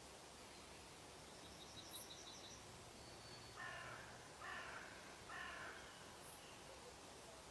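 A bird calling faintly over a steady hiss: a quick high trill of about eight notes, then three harsh calls, each about half a second long, in close succession.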